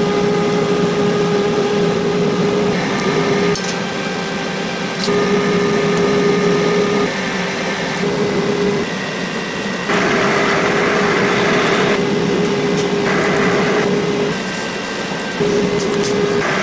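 TIG welder running a continuous weld bead on a stainless steel exhaust pipe: a steady electric buzz that stops and restarts several times as the arc is broken and struck again. Hissing rushes join the buzz about ten and thirteen seconds in.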